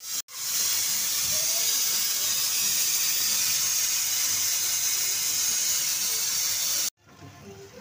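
Diced potatoes sizzling in hot oil in a steel kadhai while being stirred: a steady, loud hiss that starts just after a short break and cuts off abruptly near the end.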